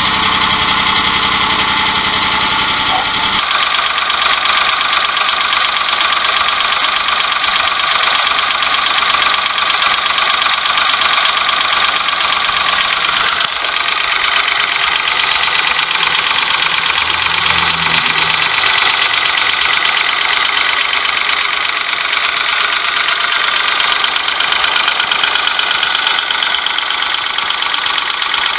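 Daihatsu S201P Hijet's small three-cylinder engine running with a loud, harsh, high-pitched abnormal noise over it, a sign of an engine fault that also keeps it from revving freely. A deeper rumble underneath drops away about three seconds in.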